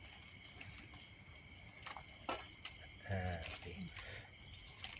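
Steady high chirring of crickets or other insects, with a couple of sharp clicks about two seconds in and a short low voice-like call about three seconds in.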